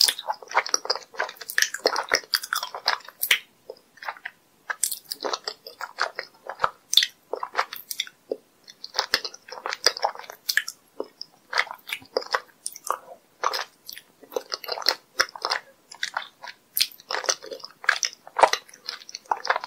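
Close-miked mouth sounds of a person sucking in and chewing soft green jelly squeezed from a plastic bottle: a rapid, irregular run of smacks and squishes with brief pauses.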